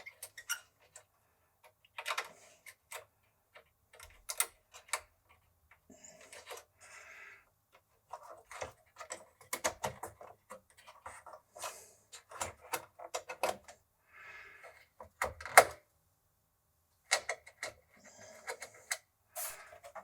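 Irregular sharp clicks and taps, mixed with a few short scraping rustles, as small hardware is handled.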